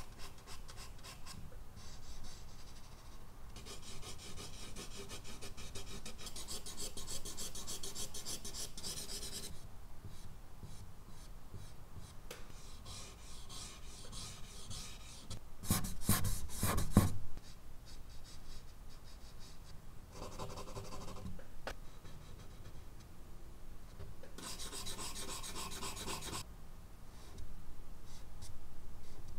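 Charcoal pencil scratching across medium-surface drawing paper in separate stretches of quick strokes, with pauses between. The loudest and roughest stretch comes about sixteen seconds in.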